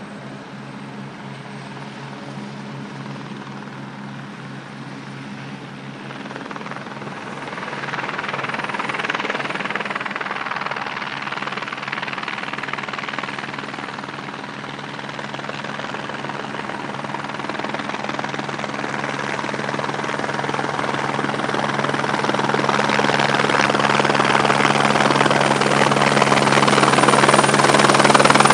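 Airbus Helicopters H145 D3 running, its five-bladed main rotor and twin turbines making a steady throb with a rushing noise over it. The sound grows louder through the stretch and is loudest near the end.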